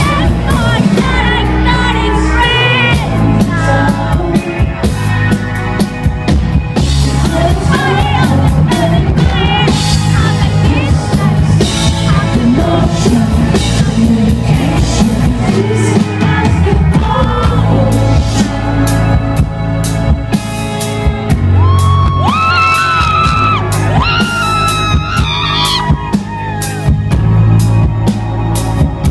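Live rock band with vocals and drum kit, recorded from the audience, with yells from the crowd. Near the end, a sung line with gliding pitch stands out over the band.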